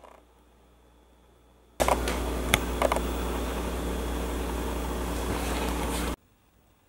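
A steady machine whir with a low hum and a few clicks and knocks, cutting in abruptly about two seconds in and stopping suddenly near the end.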